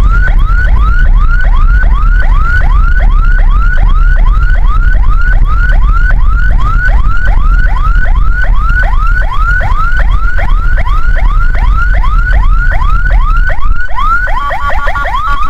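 Ambulance electronic siren in fast yelp mode: rapid rising sweeps, about three a second, over a heavy low rumble of engine and road. Near the end a second, steady pulsing tone joins the sweeps.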